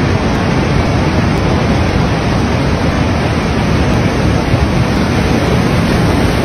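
Steady loud rush of wind buffeting the microphone, mixed with waves breaking and splashing against a stone embankment wall.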